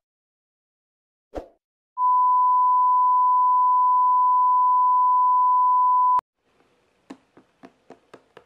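A steady electronic beep, one pure tone held for about four seconds, that cuts off with a click. A soft thump comes just before it, and a few faint taps follow.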